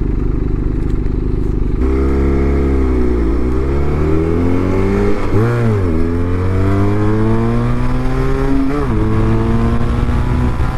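Benelli 252R's parallel-twin engine idles for about two seconds, then the bike pulls away from a standstill and accelerates up through the gears. The engine note climbs and drops back at each upshift, about three times.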